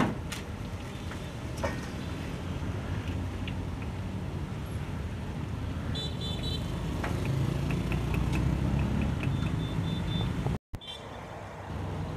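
Street traffic: engines of passing motorbikes and cars running steadily, growing louder for a few seconds past the middle, with a short horn beep about six seconds in.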